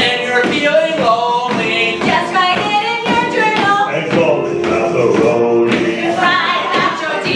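A song with several voices singing together over musical accompaniment.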